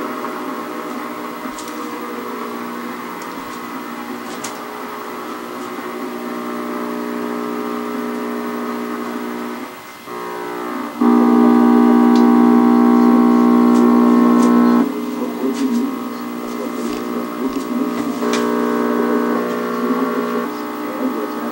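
Sound from the small speaker of a 1960s Marconi portable vacuum tube TV as its knob is turned between broadcasts: programme audio over a steady buzz. The sound drops out briefly about ten seconds in, then a much louder steady buzz sounds for about four seconds before programme sound returns. A few light clicks come from the knob.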